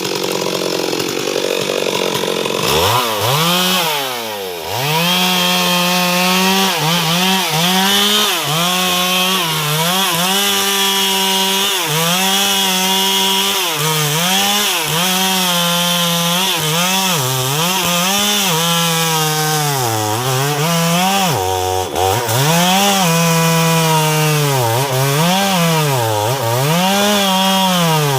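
Stihl MS 382 two-stroke chainsaw running hard while cutting wood, its engine speed sagging and picking back up over and over. For the first few seconds it runs at a steadier pitch before the repeated dips begin.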